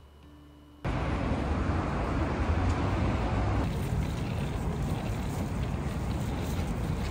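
Busy city street ambience at a pedestrian crossing: a steady noisy rumble with wind buffeting the microphone, starting abruptly about a second in.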